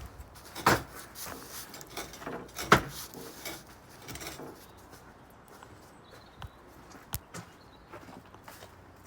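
Knocks and clicks of parts being handled while a tractor post hole borer attachment is reassembled: two loud knocks about two seconds apart, some lighter knocks, then a few light clicks near the end.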